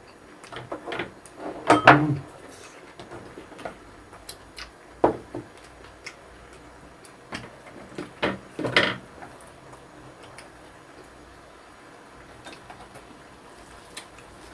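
Scattered short clicks and knocks of tableware and eating at a meal of grilled ribs: chopsticks and dishes handled between bites. The loudest clatters come about two seconds in and again twice around the eight-to-nine-second mark.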